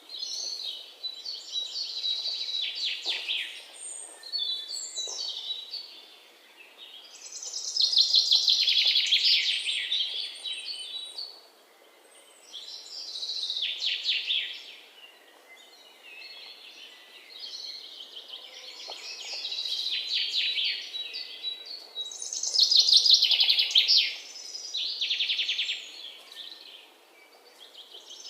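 Songbirds chirping in repeated bursts of rapid high notes, each one to three seconds long, with brief quieter gaps between them.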